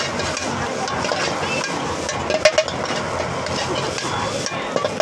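Metal ladle scraping and knocking against a wok as fried rice is stir-fried over a gas burner, over a steady rush of the burner and frying. A couple of sharp clanks about two and a half seconds in.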